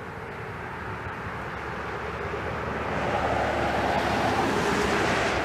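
A road vehicle approaching and passing, its tyre and engine noise swelling steadily to a peak near the end.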